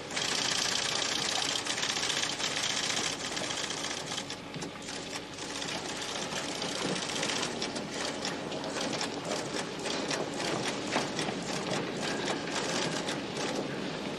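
A typewriter-style computer printer typing out a printout on its own, a fast continuous chatter of key strikes, a little louder in the first few seconds.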